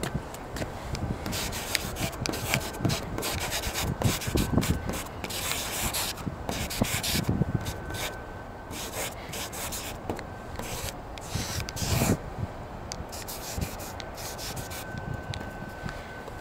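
Felt-tip paint marker dragged across a smooth, hard surface, scraping in quick, irregular strokes of different lengths as tags are written.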